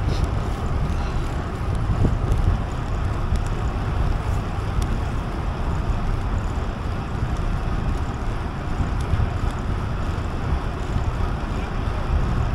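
Wind buffeting the microphone while riding a bicycle: a steady low rumble of rushing air, with a few faint clicks.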